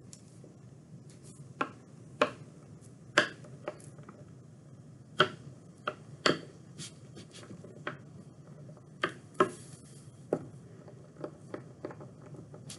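Handling noise from rolling out polymer clay with an acrylic rod roller on paper over a wooden tabletop: a dozen or more irregular sharp clicks and taps over a low steady hum.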